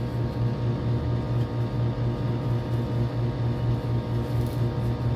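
Small air pump of an Omron upper-arm blood pressure monitor running, a steady low hum with a fast, even pulsing. The cuff is loose, so the pump keeps running without building pressure.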